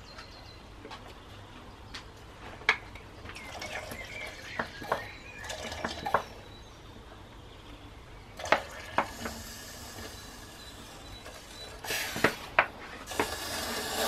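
Glass bottles clinking against each other and against a steel mixing bowl, with liquid sloshing as beer is shaken through a sauce bottle to rinse it out, then splashing into the bowl near the end.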